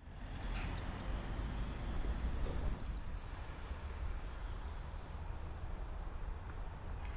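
Outdoor ambience: a steady low rumble under a songbird singing phrases of quick, high, falling chirps in the first half, with a single click less than a second in.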